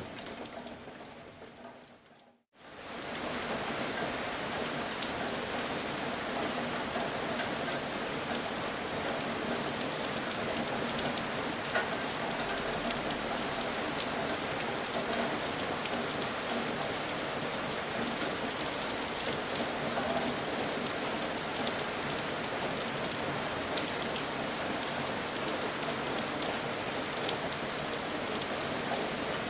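Steady rain falling, an even hiss with scattered drop patter. About two seconds in the sound fades briefly to silence, then the rain fades back in and holds steady.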